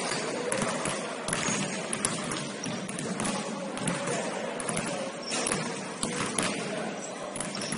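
Basketball game in a gym: a ball bouncing on the court and other short knocks at irregular intervals, over the steady noise of players and the hall.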